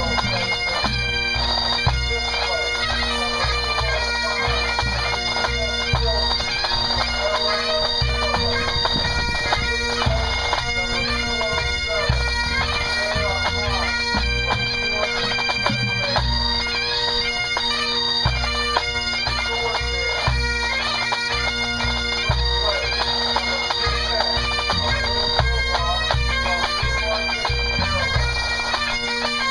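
Pipe band playing a competition medley: a section of Great Highland bagpipes, the melody moving over their steady drones, with the snare, tenor and bass drum corps playing along.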